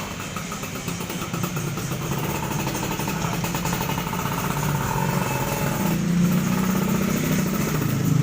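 Yamaha RX-King's two-stroke single-cylinder engine running, getting louder about six seconds in.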